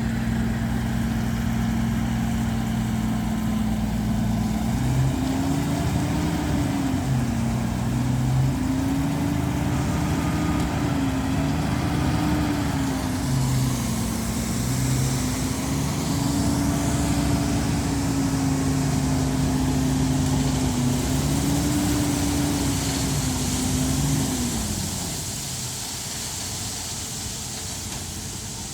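An engine running, its pitch rising and falling again and again as it revs up and down, until it dies away about 24 seconds in and leaves a steady hiss like wind.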